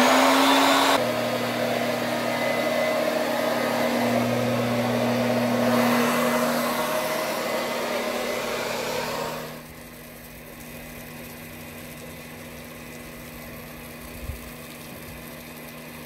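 Liberty Pumps model 331 electric transfer pump switched on, its motor running with a steady hum under the rush of water being pumped. About nine and a half seconds in it falls to a fainter steady hum and rush.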